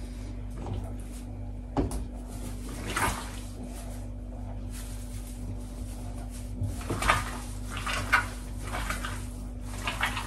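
Kitchen work sounds: a sharp knock about two seconds in, then several short, soft scraping and rustling noises, over a steady low hum.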